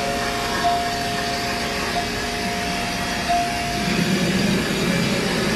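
Electric hair clippers buzzing steadily while cutting short hair, with a thin steady tone in the hum that stops a little over halfway through.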